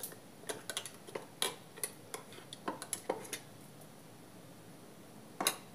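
Steel spoon clinking and scraping against a steel bowl and plate while green chutney is scooped out, a run of light clinks followed by a quieter pause and one louder clink near the end.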